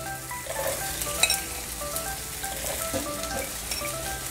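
Raw taro root pieces sizzling steadily as they are dropped by hand into hot mustard oil in a frying pan, with a sharp click or two about a second in.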